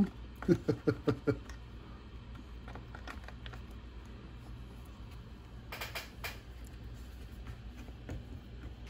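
Light clicks and taps of small RC car drivetrain parts being handled and test-fitted, with two sharper clicks about six seconds in, over a steady low hum. A brief mumbled voice in the first second or so.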